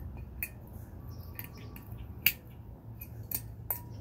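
Scattered sharp metal clicks and taps, about five in four seconds, from hands and small parts being worked on a 1982 Sachs moped engine, the last one ringing briefly; a steady low rumble runs underneath.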